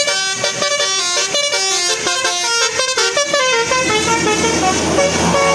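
Bus 'telolet' horn, a set of multi-tone musical air horns, playing a quick melody of short stepped notes. After about three and a half seconds the tune thins to a few longer held notes over the rumble of the bus's engine.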